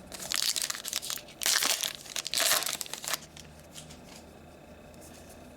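Wrapper of a trading-card pack being torn open and crinkled by hand, in several short bursts over about three seconds, stopping a little after three seconds in.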